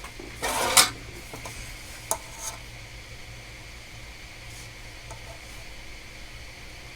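Handling noise on a repair bench: a short scraping rustle just under a second in, then two light clicks about two seconds in, over a steady low electrical hum with a faint high whine.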